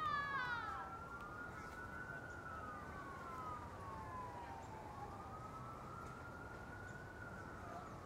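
Siren wailing slowly up and down in the distance. At the very start a short, high, arching call with overtones sounds over it.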